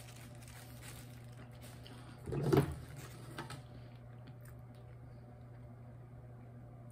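Steady low hum with light clicks and handling noises at a table, and one brief louder sound about two and a half seconds in.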